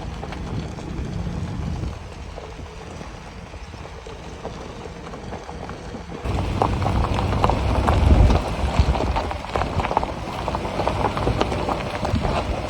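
Vehicle tires rolling over a dirt and gravel road, with a low rumble of the vehicle underneath. About six seconds in it gets louder, with dense crackling and popping of gravel under the tires.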